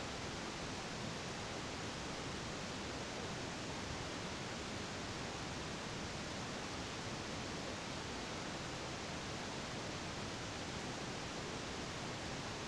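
Steady, even hiss of background noise, with no distinct strokes or knocks standing out.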